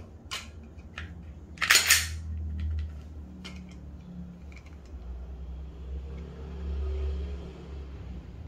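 Glock 19 pistol dry-fired during a trigger-pull gauge measurement: a sharp snap about two seconds in as the trigger breaks and the striker releases, with a faint click before it and a few lighter handling clicks after.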